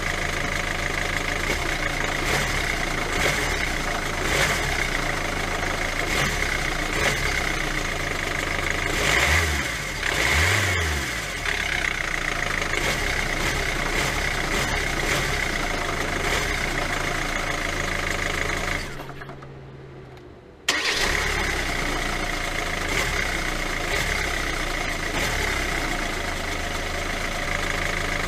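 Hyundai i40 1.7 diesel engine idling after its alternator clutch pulley was replaced, a fix the owner judges successful, with the squeal gone. Revs rise briefly a couple of times about nine to eleven seconds in; around two-thirds of the way through the sound dies away, then comes back suddenly.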